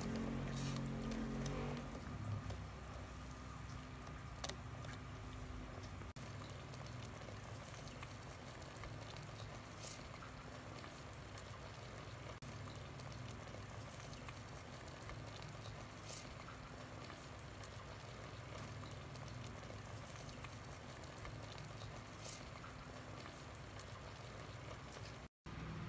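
Instant ramen broth simmering in a stainless steel pot: steady bubbling with many small scattered pops, cut by a brief dropout near the end.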